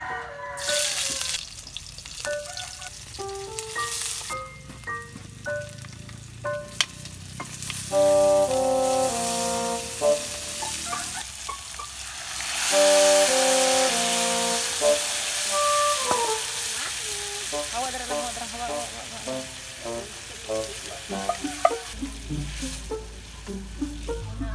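Food frying and sizzling in hot oil in a steel wok over a wood fire, stirred with a wooden spatula. About halfway through, mung bean broth is poured from a pot into the hot wok and the sizzle swells into a loud hiss, then settles as the soup heats.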